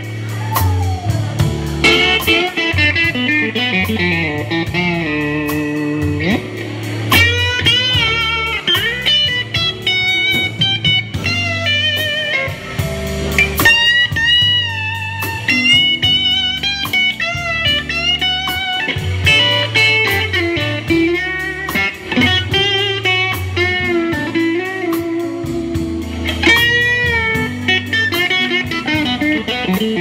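Telecaster electric guitar playing a lead line full of string bends and vibrato over drums with steady cymbal strokes.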